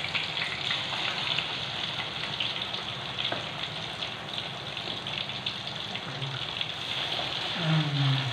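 Spice-coated chicken pieces deep-frying in a wok of hot oil: a steady sizzle with fine crackling. A brief low voice sounds near the end.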